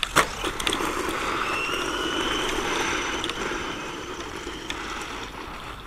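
Electric drive of a PXtoys 9200 Piranha 1/12 RC truggy whining as it runs over gravel, with the pitch climbing for a stretch about two seconds in as it speeds up. A sharp click comes right at the start, and the sound eases off near the end.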